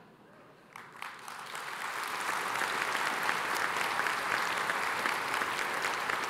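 Large seated audience applauding: a few first claps about a second in, quickly swelling into steady, full applause.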